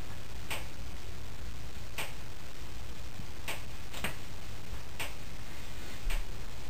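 Sharp clicks at uneven intervals, roughly one every second or so, over a steady low hum and hiss, with a soft low thump about six seconds in.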